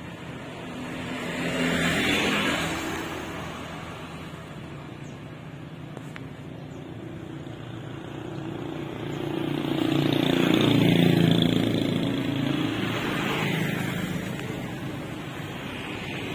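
Motor vehicles passing on a road: engine sound swells up and fades about two seconds in, then a louder pass builds around ten to eleven seconds in, trailing into a smaller swell before dying away.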